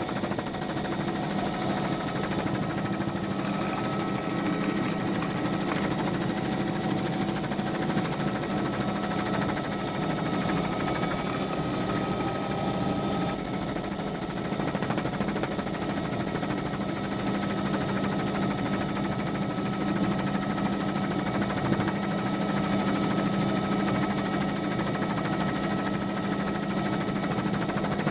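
Steady motor and rotor drone of the aircraft carrying the aerial camera, unchanging throughout with a low hum and a few faint steady whines above it.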